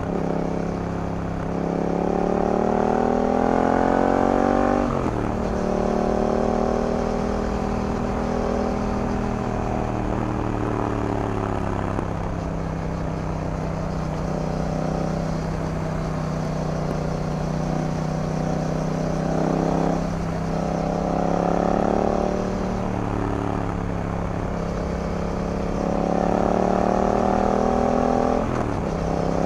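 Yamaha MT-07's parallel-twin engine through an Akrapovic full exhaust under way: revs climb and drop sharply at gear changes about five seconds in and just before the end, with stretches of steady cruising and a gentler rise and fall in between.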